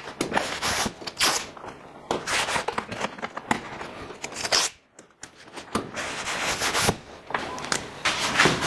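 Masking tape ripped off the roll in several strips and smoothed down onto a brown-paper template, with a short pause about five seconds in.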